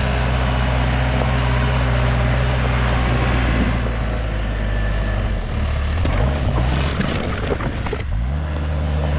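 Backhoe engine running under load, with a steady low drone that changes pitch about halfway through and rises again near the end.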